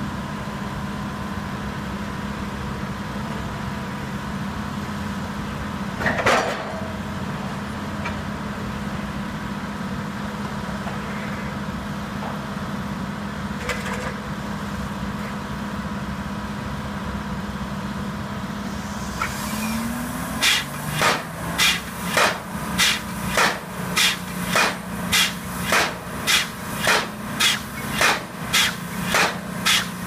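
Crane engine running steadily, with a single loud clank a few seconds in. About two-thirds of the way through the engine picks up and a pile hammer starts driving a steel pile: loud, regular blows, about three every two seconds.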